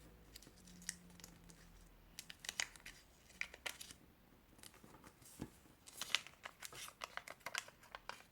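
A sheet of origami paper being folded and creased by hand: runs of short crinkles and rustles, one about two seconds in and a denser one from about six seconds on.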